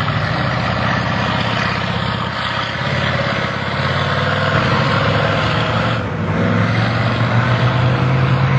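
Monster truck engine running loud as the truck drives along the dirt track, its note stepping up about six seconds in and climbing under more throttle.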